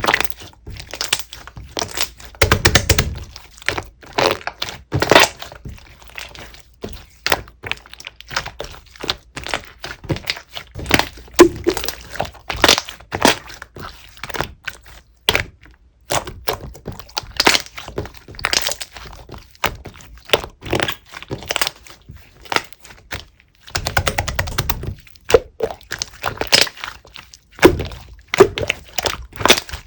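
Clear slime being squeezed and poked by hand, giving a dense, irregular run of sharp clicks and crackling pops. There are duller low thuds about two and a half seconds in and again near twenty-four seconds.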